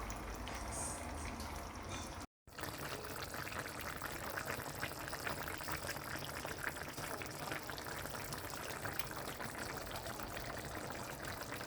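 Liquid bubbling and splashing in a cooking pot of curry goat, a steady crackly texture of many small irregular pops. The sound breaks off completely for a moment about two seconds in, then carries on.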